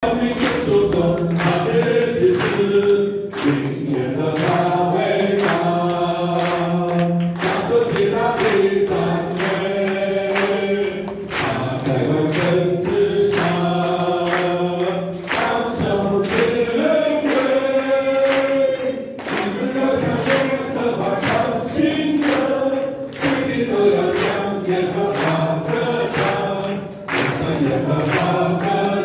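A group of voices singing a Chinese-language worship song together, over accompaniment with a steady beat.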